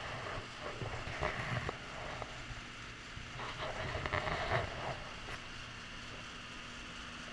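Irregular rustling and knocking from a handheld camera being moved about, for roughly the first five seconds, over a steady low hum that continues alone afterwards.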